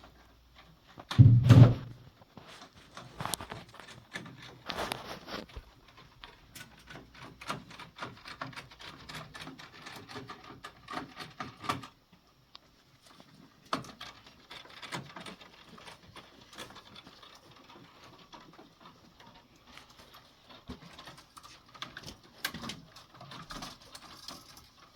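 Irregular clicks, taps and rustling of hand work on electrical wiring, with one loud thump about a second and a half in and a sharp knock about halfway through.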